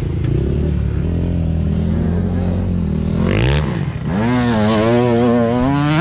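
Dirt bike engine heard from the rider's helmet, running steadily through a turn, dipping sharply about three and a half seconds in, then revving up hard toward the end.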